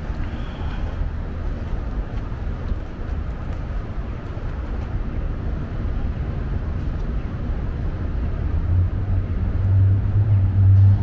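Street ambience of a city downtown: a steady low rumble of traffic. In the last couple of seconds a steady low engine hum grows louder.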